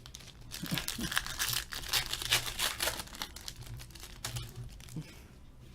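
Foil trading-card pack wrapper crinkling and tearing as it is torn open, a dense crackle for about two and a half seconds before it settles to light handling.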